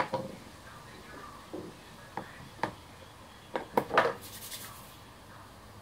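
Small hard objects handled on a desktop: a sharp knock, then scattered lighter taps and clicks, with a quick cluster of three about four seconds in, followed by a brief scraping hiss.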